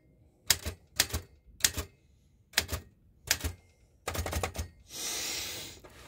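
Keys of a 1969 Remington Ten Forty manual portable typewriter being struck, the type bars hitting the platen one at a time, about one strike every half second to second. A quick run of strikes comes about four seconds in, then a longer hiss-like sound of under a second near the end.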